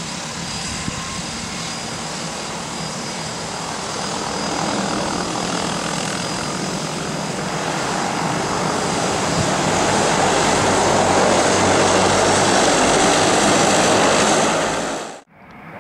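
Turboprop engine and propeller noise of a de Havilland Otter floatplane landing and running along the water on its floats, mixed with the rush of spray. It grows steadily louder over the run, then cuts off suddenly just before the end.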